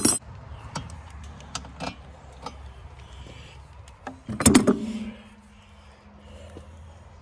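Metal hand tools clanking on and around a cast-iron engine: a sharp knock at the start, a few light clicks, then a louder clank about four and a half seconds in that rings on for about a second.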